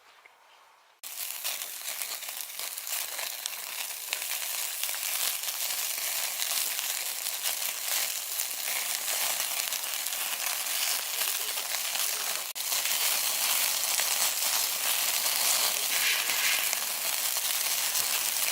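Food sizzling and crackling in hot oil in a frying pan, starting suddenly about a second in and running on as a dense hiss, a little louder after a brief break past the middle.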